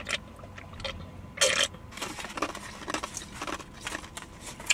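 Drinking from a paper cup and putting it down: a short rushing sip noise about a second and a half in, with light scattered clicks and knocks of the cup and hands.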